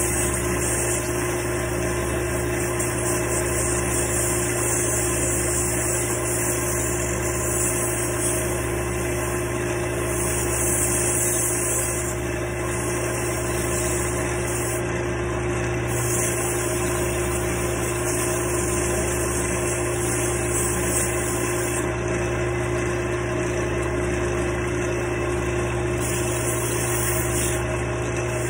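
Wood lathe motor running steadily with a constant hum, spinning a small wooden dowel workpiece. Over it, a high hiss swells and drops every few seconds as sandpaper is held to the turning wood.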